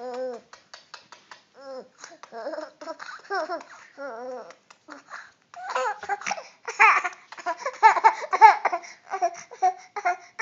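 Small child laughing and babbling in high-pitched bursts, loudest in a run of laughter about six to nine seconds in, with a few small clicks near the start.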